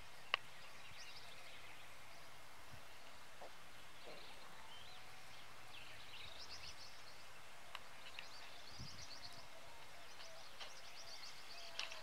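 Open-country ambience: a steady hiss with small birds chirping and trilling now and then, most busily in the second half, and one sharp click just after the start.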